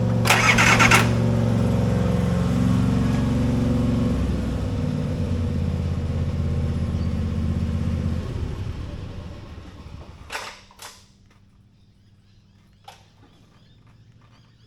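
Nissan RD28 straight-six diesel being cranked over on the starter without catching, then the cranking winds down and stops about eight to ten seconds in. A short loud hiss comes about half a second in, and a few clicks near the end. The engine has a split injector line.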